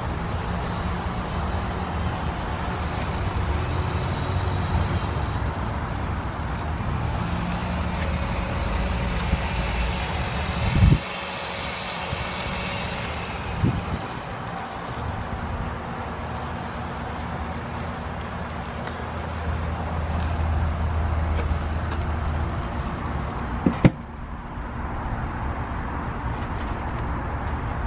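Steady motor-vehicle engine hum, with a few short sharp knocks, the loudest about 24 seconds in.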